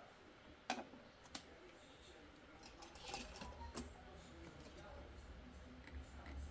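A few sharp clicks and small taps, spaced irregularly, from small laptop parts and tools being handled. A faint low rumble comes in about halfway through.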